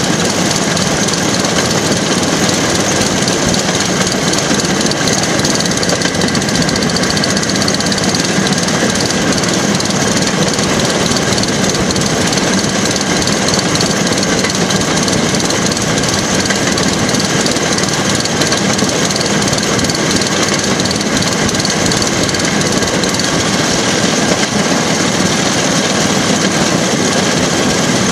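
The engine of a motorised railway track car (jigger) running steadily as it travels along the line, mixed with the sound of its steel wheels rolling on the rails.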